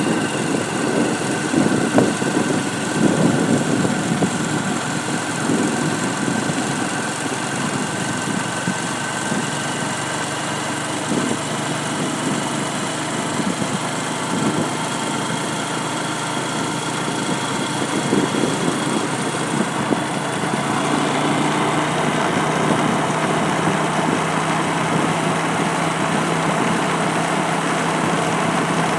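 A motor vehicle's engine running steadily, with a low steady hum settling in about a third of the way through.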